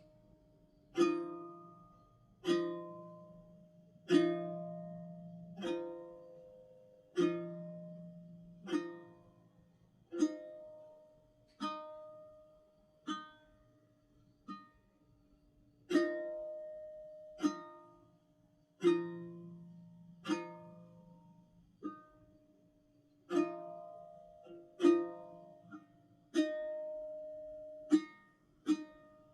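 Background music: a slow plucked-string tune, one note or chord about every second and a half, each ringing out and fading before the next.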